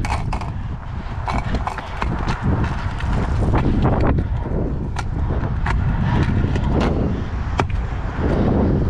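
Stunt scooter's 110 mm wheels rolling over concrete, a steady low rumble broken by sharp clicks and knocks as the wheels cross joints and the scooter rattles.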